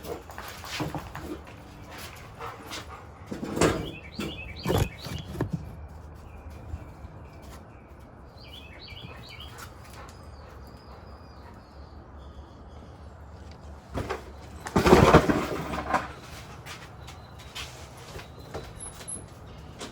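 Scattered scrapes and knocks of a rake working yard ground, the loudest a long scrape of about a second and a half about fifteen seconds in. Small birds chirp in two short runs of quick notes.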